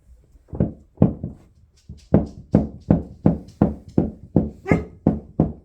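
Hammering on the subfloor from below: a few scattered blows, then a steady run of about three strikes a second from about two seconds in, each ringing briefly.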